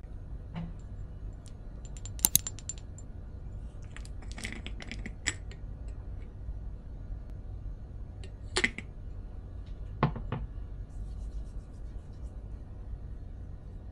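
Small sharp clicks and taps of a Kérastase glass hair-oil bottle and its dropper being opened and handled, in a few short clusters over a steady low room hum.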